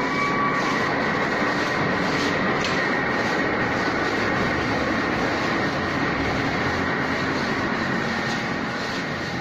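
Automatic wall-plastering machine running: a loud, steady mechanical rumble and rattle with a faint high whine.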